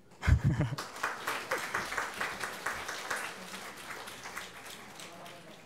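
Audience applauding, the clapping thinning out and fading away over several seconds. A brief voice sounds just before the clapping starts.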